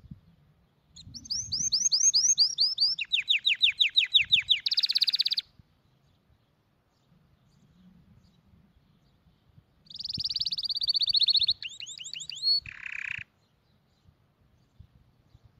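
A small songbird singing in two bursts of rapid, high trilled phrases: the first about a second in, lasting around four seconds; the second about ten seconds in, lasting around three.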